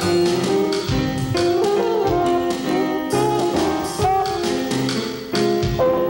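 Instrumental jazz music: a melody line with bent notes over a bass line and a steady drum beat.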